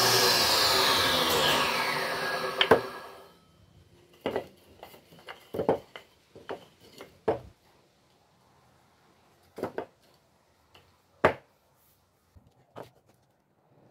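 Table saw blade spinning down after a cut, its whine falling in pitch and fading out over about three seconds. Then a few separate wooden knocks as the small cut blocks are handled and set down on the saw table.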